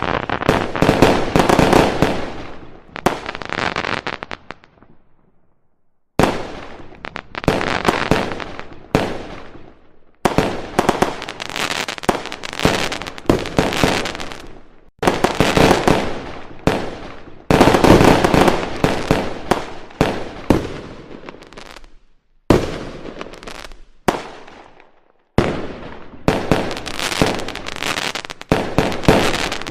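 Aerial firework shells bursting one after another in a display: sharp bangs, often several in quick succession, each trailing off before the next, with a short lull about five seconds in.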